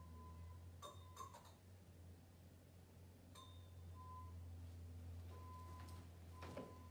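Near silence: a low steady hum and a faint thin tone that comes and goes, broken by a few light clicks, a cluster about a second in, one midway and one near the end.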